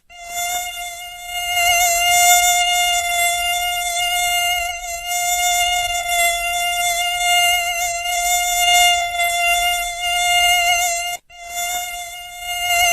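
Mosquito wingbeat whine, a steady high-pitched buzz that wavers slightly in pitch and loudness. It cuts out for an instant about 11 seconds in and then resumes.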